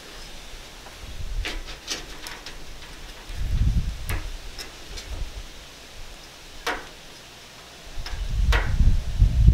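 A spline roller pressing spline and screen mesh into the channel of a metal window-screen frame: scattered light clicks and ticks, with dull low rumbles about three seconds in and again near the end.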